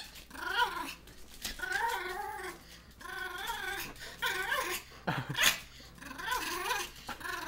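Pomeranian whining and grumbling in a string of short calls, each rising and falling in pitch, with a short sharper sound about five seconds in.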